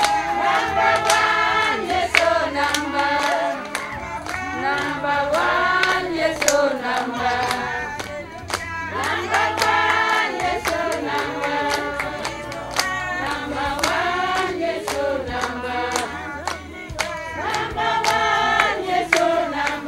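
A group of voices singing a song together, with hand clapping and a low held bass note that changes every couple of seconds.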